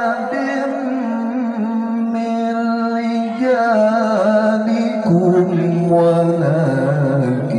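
A male reciter chanting the Quran in the melodic tilawah style, amplified through a PA system. He holds long, ornamented notes and drops to a lower register about five seconds in.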